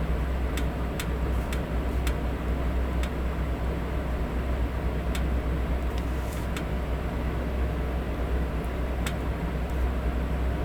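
Electric fan running, a steady whooshing noise with a low hum underneath. A few faint light ticks come and go over it, most in the first three seconds.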